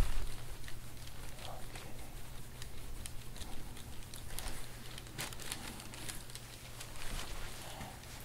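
Hands pressing and sliding over the skin of a bare back in a deep-tissue massage: irregular soft rubbing with scattered crackling clicks, and a low thump right at the start.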